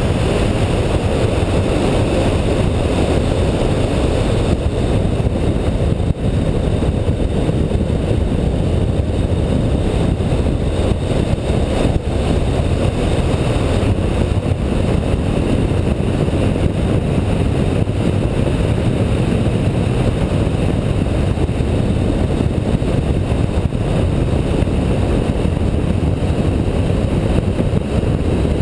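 Car driving at speed, heard from a hood-mounted camera: a steady, loud rush of wind and running noise, heaviest in the low range, with no distinct engine note or sudden sounds.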